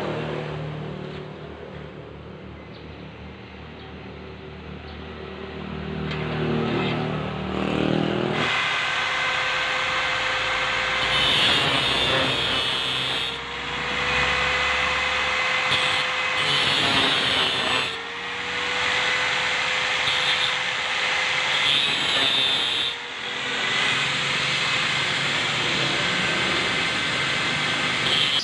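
A power tool's motor running steadily, then loudening into a higher, harsher running sound about eight seconds in, as if cutting under load. The pitch dips briefly three times as the load comes on.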